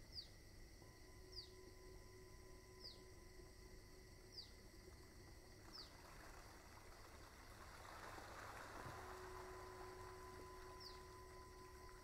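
Near silence: faint room tone with a short, high, falling chirp repeating about every second and a half. The chirps stop for a few seconds midway, when a faint hiss swells and fades about eight seconds in.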